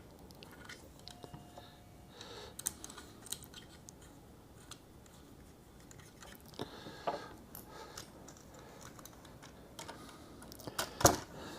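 Faint, scattered clicks and taps of small plastic RC car parts and screws being handled while a shock absorber is fitted, with a couple of sharper knocks near the end.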